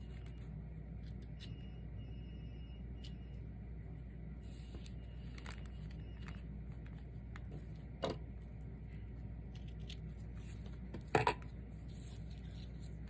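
Hands handling a paper ribbon and scissors over a steady low hum, with faint small ticks. There is a short sharp click about eight seconds in and a louder one about eleven seconds in.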